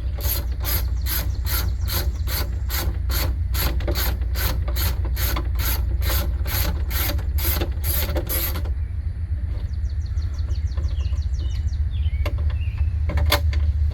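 Hand ratchet wrench clicking in even strokes, about three a second, for roughly nine seconds, then a brief run of lighter, quicker clicks; a steady low hum underneath.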